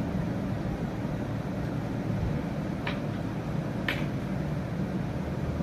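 Electric hand mixer running steadily at low speed, with two light clicks about three and four seconds in.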